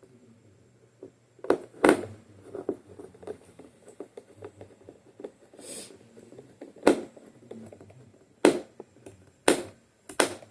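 Screwdriver driving screws into an iMac's LCD assembly, giving several sharp clicks, the click that means a screw is tightened up, among small handling rattles.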